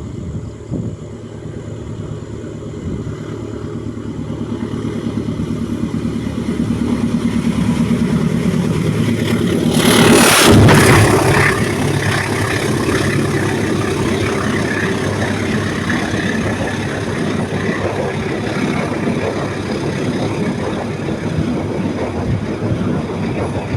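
Diesel-hauled passenger train on the rails, its engine note building louder over the first ten seconds. A loud rush comes about ten seconds in, then a steady rumble of the train running on.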